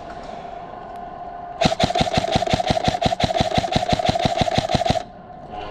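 Krytac Trident MKII CRB-M airsoft electric gun firing one sustained full-auto burst of about three seconds, starting a second and a half in. It gives even, rapid clicks of about eight shots a second over the gearbox motor's whine, and stops sharply.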